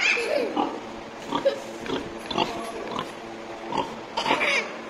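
A large boar grunting: short, separate grunts about every half second to second.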